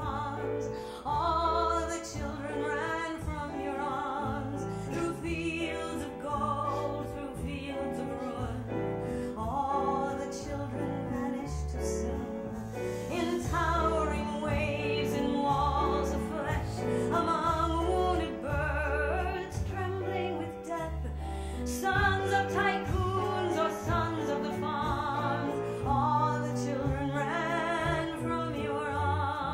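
Live cabaret music: a piano accompaniment under a melody line with heavy vibrato.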